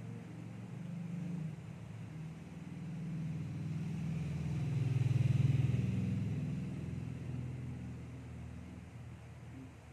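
A motor vehicle passing by, its engine hum swelling to a peak about halfway through and then fading away.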